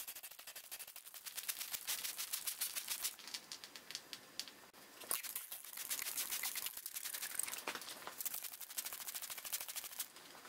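Hand trigger spray bottle squirted rapidly over and over, a quick run of short hissing sprays and trigger clicks, with water spattering onto a wooden birdhouse roof. The squirts come in several fast runs with brief let-ups.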